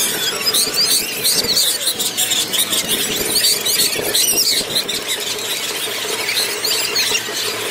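Street parade sound played back at four times normal speed: the crowd's voices and the street noise sped up into a fast, high-pitched squealing chatter of quick chirps.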